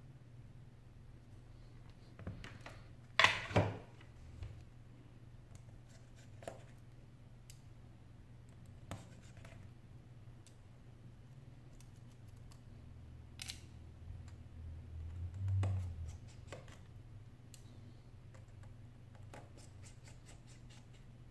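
An iPhone 6 display assembly and small tools handled on a work mat: scattered light clicks and taps, with two sharp clacks about three seconds in and a dull low bump a little after halfway.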